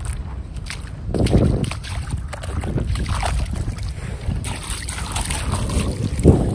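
Seawater sloshing and splashing around someone wading through the shallows, with wind rumbling on the microphone. It is louder about a second in and again near the end.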